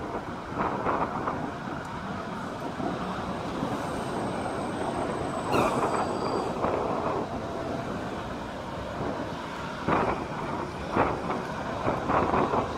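Road traffic passing on a multi-lane road: a steady rush of tyres and engines, with cars swelling louder as they go by, several times near the end.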